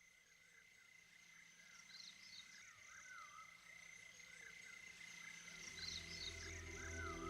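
Faint nature-sound track fading in: repeated chirping calls over a steady high buzz. Soft sustained music tones enter about six seconds in.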